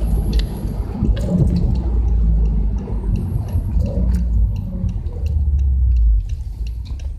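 Subaru Legacy BL5 GT's turbocharged flat-four and the car's running noise while driving, a steady low rumble that drops off about six seconds in, with light ticks over it.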